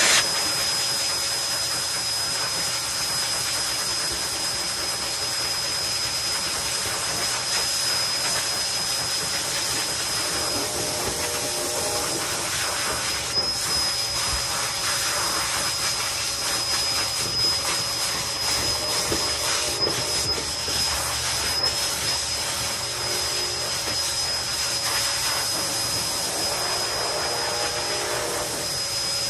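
Vacuum-type electric motor running steadily through a hose held to a husky's coat during grooming: a continuous rush of air with a steady high whine.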